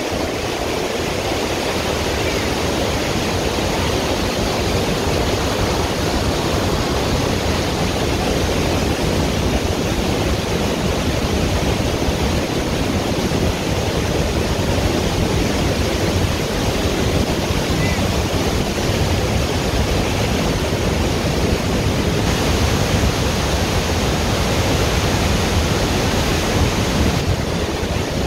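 Devil's Throat at Iguazu Falls, a massive waterfall with water plunging into its gorge in a loud, steady, unbroken rush.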